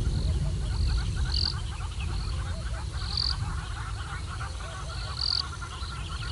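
Frog chorus at a waterhole: many short calls repeating rapidly and overlapping, with a higher-pitched call repeating about every two seconds, over a steady low rumble.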